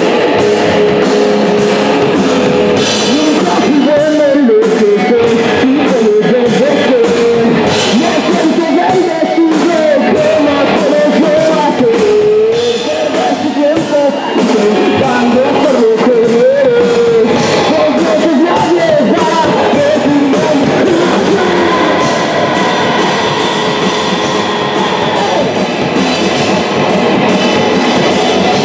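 Punk rock band playing live: electric guitar, electric bass and a drum kit, loud and continuous, with a voice singing over the band from about four seconds in until around twenty-one seconds.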